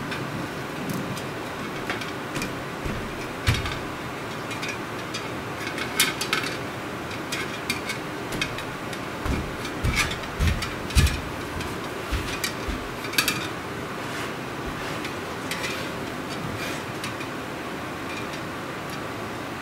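Scattered metal clicks and knocks of the desk fan's wire guard and small hardware being handled and fitted by hand, busiest near the middle. A dehumidifier runs steadily underneath.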